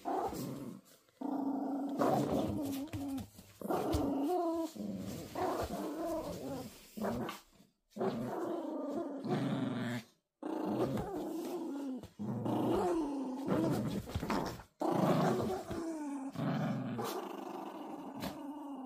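Toy poodles growling over a toy in a tug-of-war, play growls in repeated bouts of one to two seconds with short breaks, the pitch wavering up and down.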